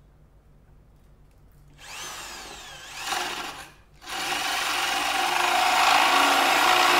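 Corded electric drill with a spade bit boring into a wooden board. The drill runs briefly about two seconds in, stops, then runs steadily from about four seconds in as the bit cuts into the wood.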